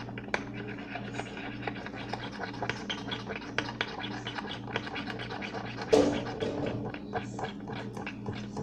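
A utensil scraping and clicking irregularly against a bowl as glue and boric acid water are stirred into slime that is starting to thicken, with one louder bump about six seconds in.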